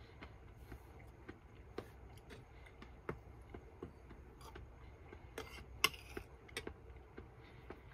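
Quiet eating sounds: small irregular mouth clicks from chewing and a metal spoon tapping and scraping a ceramic plate, the sharpest tap about six seconds in. A low steady room hum runs underneath.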